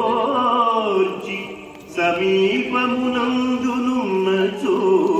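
A man singing slow melodic phrases in long held notes, part of the sound-and-light show's recorded soundtrack. One phrase fades about a second in and a new one enters about two seconds in.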